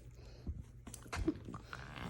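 French bulldog making a brief low grunt amid a few soft knocks and taps.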